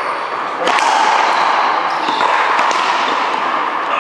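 One-wall racquetball rally: a few sharp pops of the ball struck by racquets and hitting the wall, over a steady hiss of background noise.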